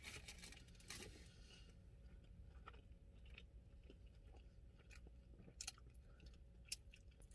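Faint chewing of a mouthful of crispy fish sandwich, with scattered soft mouth clicks and lip smacks.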